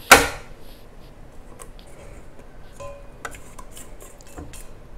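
A sharp clunk just after the start, then scattered light taps and clicks of a stand mixer and its metal bowl being handled, with a brief ringing clink about three seconds in.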